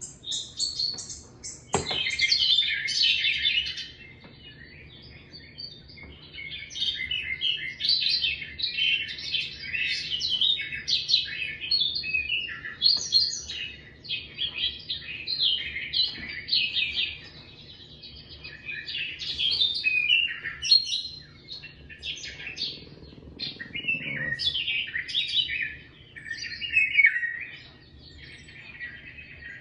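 Songbirds chirping and twittering from a nature video playing through the TV speakers: rapid runs of short high chirps with a few brief lulls.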